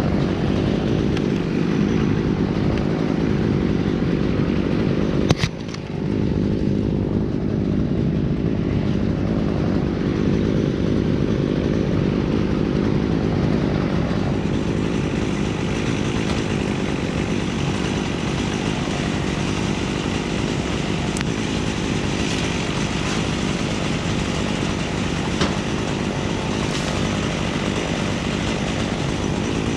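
An engine running steadily, with one sharp knock about five seconds in.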